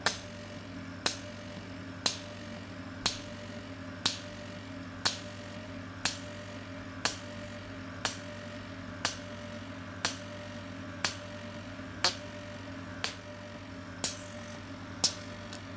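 Oxygen facial machine running with a steady hum while its oxygen-infusion function pulses with a sharp click about once a second, the slower rhythm chosen for infusing product into the skin. A brief hiss comes in near the end.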